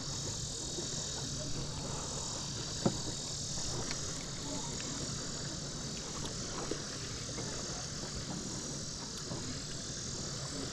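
Steady chorus of night insects, shrill and even, over a low steady hum, with a few faint clicks and one sharp tick about three seconds in.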